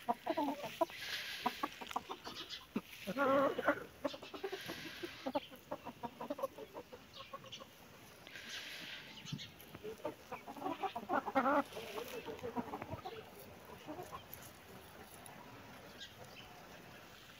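Chickens clucking in short, wavering calls, with the loudest bouts about three seconds in and again about ten to eleven seconds in.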